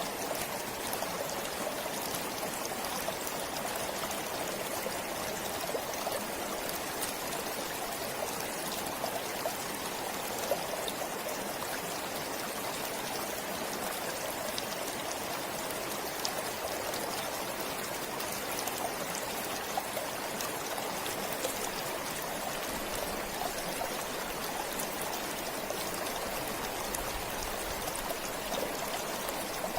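Forest stream flowing steadily, with a constant rush of water and many small splashing ticks.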